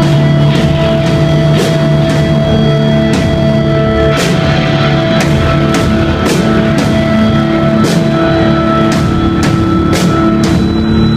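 Live heavy rock band playing loud: electric guitars holding ringing chords over a drum kit with cymbal crashes.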